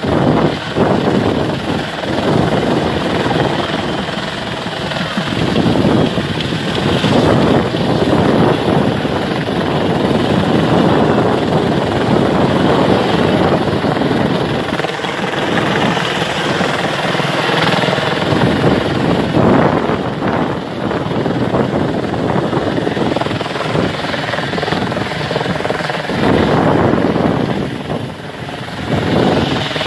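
Helicopter flying overhead, its rotor and engine noise steady and loud.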